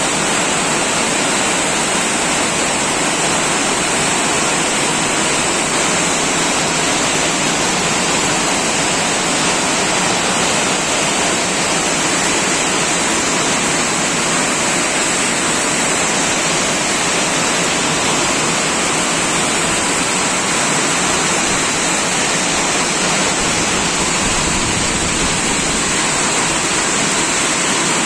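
Heavy hailstorm: dense hail mixed with rain pelting the ground and nearby surfaces, a loud, steady rushing hiss with no break.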